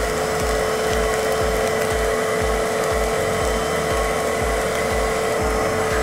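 A wet/dry shop vac runs steadily with a high-pitched whine as it sucks the air out of a vacuum storage bag packed with popcorn. A low pulse repeats about twice a second underneath.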